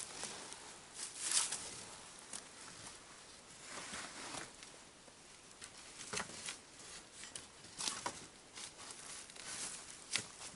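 Wooden branches being handled and fitted into a pole frame: irregular rustling and scraping of wood on wood, with a few sharp clicks and snaps.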